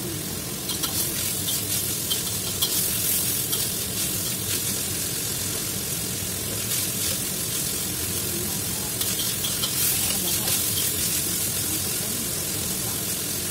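Chicken pieces sizzling in a hot wok while a metal spatula stirs and scrapes them around, with bursts of spatula scrapes and clicks against the wok over a steady frying hiss.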